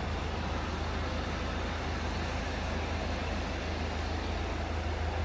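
Engine of a sky-lift truck running steadily at idle, a low even hum with a fine regular pulse.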